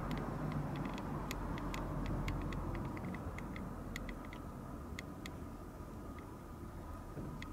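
A steady low rumble with a quick, irregular run of light clicks and ticks over the first five seconds or so, then a faint steady hum.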